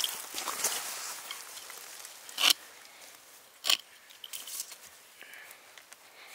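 Short scrapes and rustles of a knife and hands working in forest soil and leaf litter beside a matsutake mushroom, two clear ones about two and a half and three and a half seconds in, then a few fainter ones.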